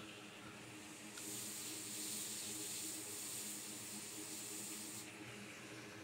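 A steady high hiss starts about a second in and cuts off about a second before the end, over a faint steady low hum.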